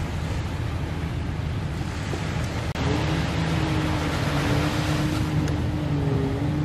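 Steady rush of surf and wind. About three seconds in, a steady engine hum joins it and the sound gets louder.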